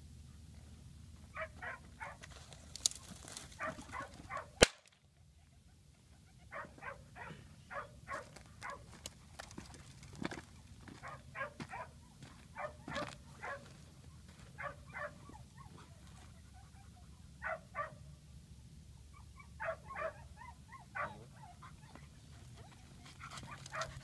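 Pointing dog whimpering while holding point, in short high whines that come in irregular clusters. A single sharp knock about four and a half seconds in.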